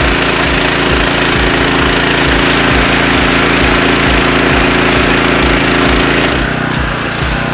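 Simpson PS4240H gas pressure washer, with its Honda GX390 engine, running under load while the green 25-degree tip sprays a fan of water onto concrete with a loud steady hiss. About six seconds in the trigger is released: the spray hiss cuts off and the engine runs on unloaded.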